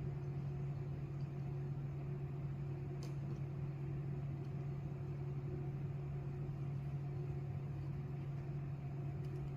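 Steady low hum, with a faint tick about three seconds in.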